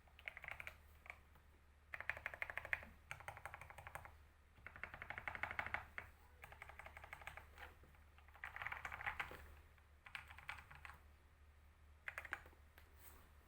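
Fast typing on a computer keyboard: runs of rapid key clicks, each about a second long, with short pauses between them, over a faint steady low hum.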